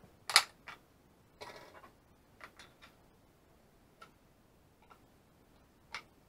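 Small plastic clicks and handling noises as a receiver module is fitted into the module bay of a pair of FPV goggles: a sharp click about half a second in, a short scraping rustle, then a few lighter clicks spread through the rest.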